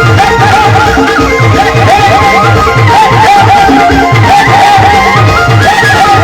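Loud band music: an ornamented melody line over a steady beat of low drum strokes, about two to three a second.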